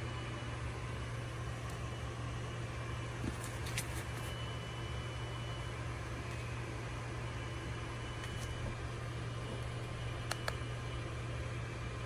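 A steady low mechanical hum with an even hiss, like a fan or air-conditioning unit running, with a few faint clicks of handling.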